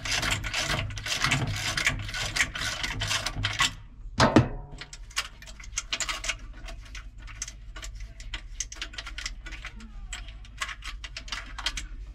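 Ratchet wrench clicking rapidly as the 13 mm nuts are spun off a washer's counterweight bolts, then a single loud thump about four seconds in. After it, lighter scattered clicks and rattles of loose metal nuts being handled.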